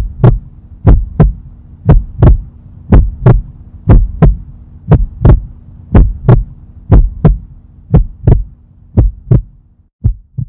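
Heartbeat sound effect: paired lub-dub thumps about once a second over a steady low hum. The beats grow fainter near the end, the hum stops, and a last quieter pair follows.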